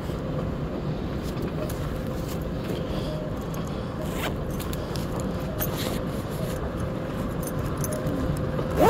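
Airport moving walkway running with a steady hum and low rumble, with scattered light clicks. Near the end comes a quick rising zip, a jacket zipper being pulled.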